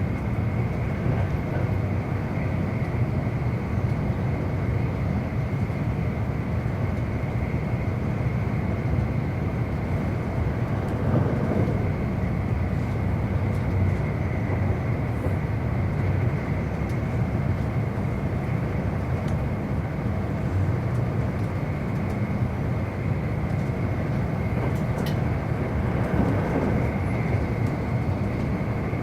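E259 series Narita Express electric train running at speed, a steady rumble of wheels on rail heard from inside the carriage.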